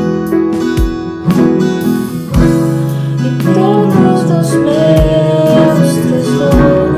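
Live worship band music: strummed acoustic guitar over a low drum beat in an instrumental passage of the song.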